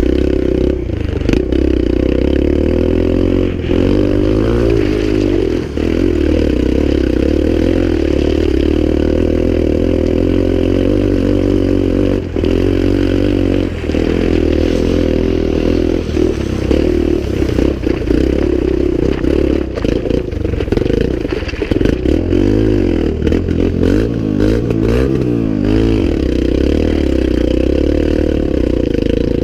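Dirt bike engine running while being ridden, its revs rising and falling throughout.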